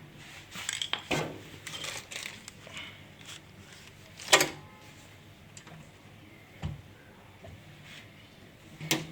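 Dishes and kitchen utensils clinking and clattering as they are handled, in scattered knocks with one loudest clank about four seconds in.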